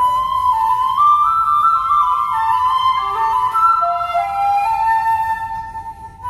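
Shakuhachi playing a melody of held, stepping notes that move lower through the middle and fade near the end, with a seventeen-string koto accompanying.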